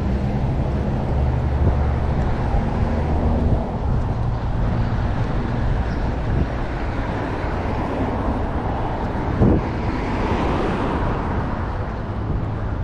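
City street traffic noise under wind rumbling on the microphone, steady throughout, with a short knock about nine seconds in and a swell of passing traffic shortly after.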